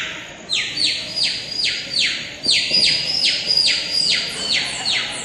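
Baby chicks' peeping, mimicked by a sound effect artist: a rapid run of short, high peeps that each slide downward in pitch, about three a second.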